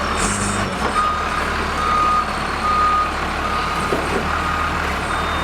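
Sanitation snowplow truck's backup alarm beeping, a single steady tone repeated a little more than once a second from about a second in, over the truck's engine running. The alarm signals that the truck is in reverse.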